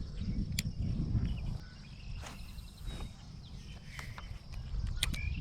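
A steady high insect drone, with uneven low rumbling noise and a few sharp clicks over it.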